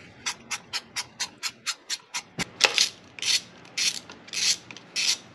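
Hand ratchet wrench clicking as it turns a T30 Torx bolt in a car engine bay. It starts with a run of even clicks, about four a second, then gives several longer, louder strokes.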